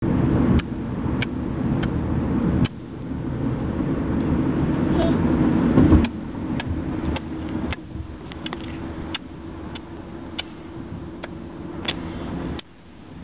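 Young children making repeated short smacking kiss noises with their lips, a dozen or so scattered sharp smacks, over the steady low rumble of a moving car's cabin.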